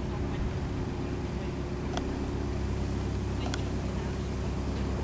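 Narrowboat's diesel engine running steadily at cruising speed, a low even hum. Two faint short ticks sound about two and three and a half seconds in.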